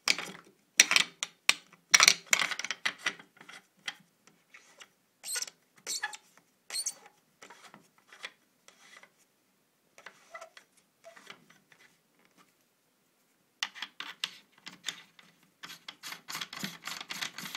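Hands fitting a barrel onto a BT TM-15 paintball marker: irregular clicks, knocks and rubbing of metal and plastic parts, with a quieter stretch in the middle and a fast run of clicks near the end. No shot is fired.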